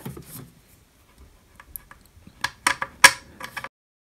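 Hands handling small metal and plastic parts while fitting a bracket and cable conduit: a run of sharp clicks and clacks, the loudest about three seconds in. The sound then cuts off suddenly.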